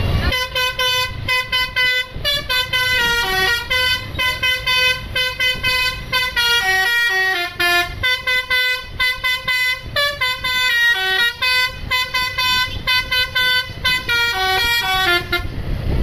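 Basuri telolet horn on an ABS Trans tour bus playing a quick melody of short notes that step up and down in pitch, for about fifteen seconds.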